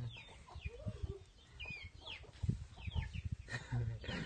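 Young chickens peeping, a run of short chirps that fall in pitch, with a few soft low thumps among them.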